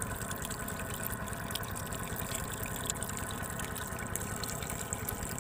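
Steady running water with a faint, even motor hum beneath it, and scattered small ticks and splashes from the shallow water.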